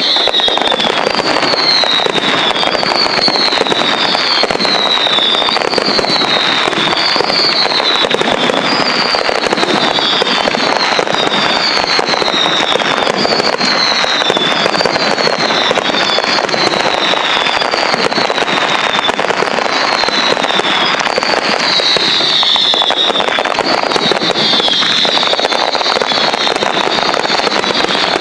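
Fireworks finale barrage: a dense, continuous volley of bangs and crackling, with a short falling whistle repeating about once a second over it.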